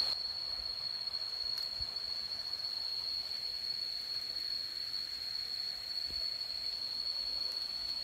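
Insects droning in tropical forest: one continuous high-pitched tone, unbroken and even, over a faint steady hiss.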